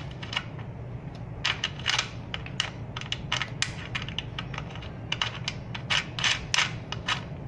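Irregular light metallic clicks and ticks in short clusters as an acorn nut is spun by hand onto the threaded axle of an electric bike's hub motor, against its washer in the frame dropout.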